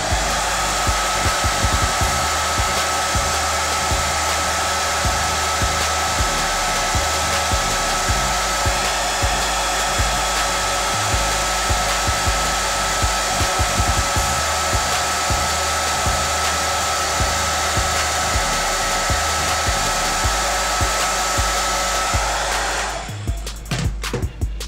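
Handheld blow dryer running steadily on the hairline, a rush of air with a thin high whine, switched off near the end.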